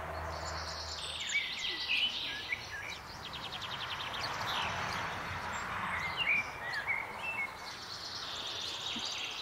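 Small birds chirping and trilling over a steady hiss of outdoor background noise, the chirps coming in clusters throughout.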